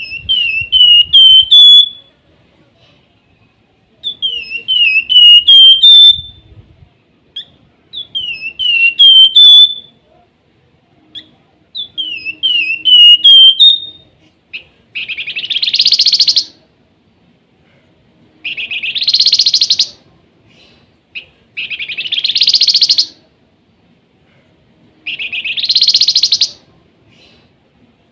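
A flamboyan songbird singing. It gives four phrases of quick, clear whistled notes, each about two seconds long. About halfway through it switches to a harsh buzzy call repeated every three to four seconds.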